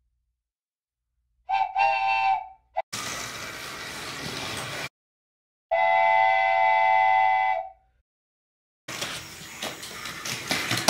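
Steam-train whistle: two short toots, then a steady hiss of steam for about two seconds, then one long whistle blast, each cut off cleanly. Near the end, small clicks and rattles take over.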